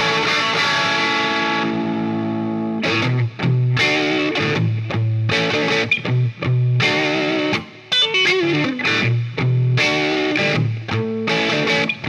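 2017 Gibson Firebird T electric guitar with stock pickups, played through an amplifier and 2x12 speaker cabinet. A chord is left ringing for about three seconds, then come rhythmic chords broken by short stops, with a falling run of single notes about eight seconds in.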